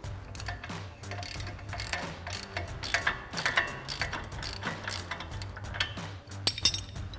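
Hand ratchet clicking in quick runs of strokes as an 18 mm socket turns the nut off a sway bar end link's lower bolt, with a wrench holding the bolt from behind. Faint background music runs underneath.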